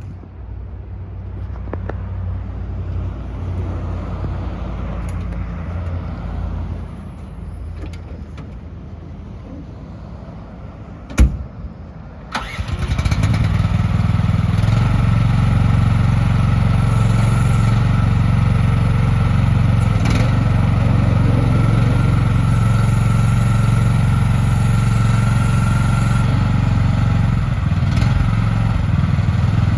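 Lanty LAT-13S mini excavator's engine starting about twelve seconds in, then running steadily at idle. Before it there is a low rumble and, a second before the start, one sharp knock.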